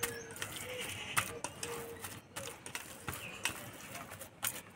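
Hands kneading fresh chhena in a stainless steel bowl: soft squishing with irregular clicks and taps of fingers and curd against the metal.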